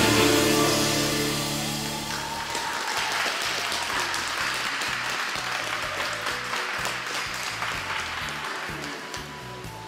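Skating-program music ending about two and a half seconds in, followed by audience applause that slowly fades.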